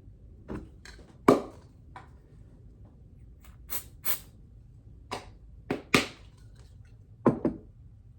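About ten sharp, irregular clicks and taps of small hard parts against the plastic of an RC crawler chassis, the loudest about a second in and near six seconds, as tiny magnets are handled and set in place.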